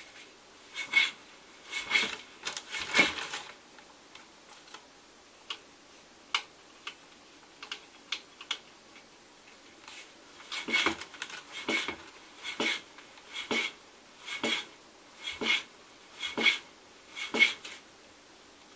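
A RockShox Vivid R2C rear shock on a mountain bike knocking. There are a few clattery knocks in the first three seconds, scattered light clicks after that, then a regular run of knocks about one a second.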